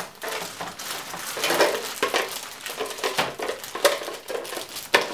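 Clear plastic bag crinkling as it is handled and pulled open, with a few sharp plastic clicks from the toys and case being handled.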